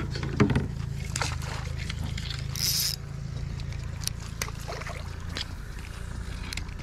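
Fishing rods and reels being handled in a kayak: scattered small clicks and knocks, with a brief hiss about two and a half seconds in, over a steady low rumble.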